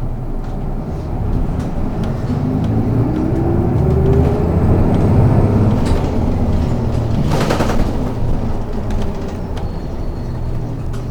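City bus heard from inside the cabin: the engine note rises over a few seconds as the bus pulls away, then eases off. There is a short burst of hiss about seven and a half seconds in.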